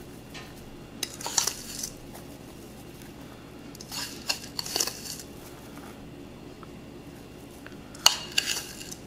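Metal spoon scraping and clinking against a ceramic bowl as oiled panko crumbs are scooped out, in three short bursts a few seconds apart.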